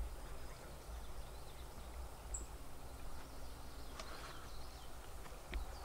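Quiet forest ambience: a low steady rumble with a few faint, brief high bird chirps and scattered light clicks.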